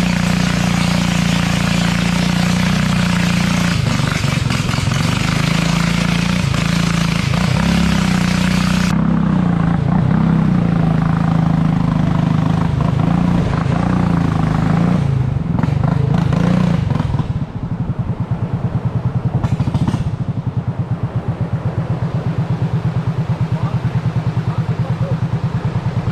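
Small boat engine running steadily with a wavering pitch, dropping about two-thirds of the way through to a quieter, evenly pulsing throb.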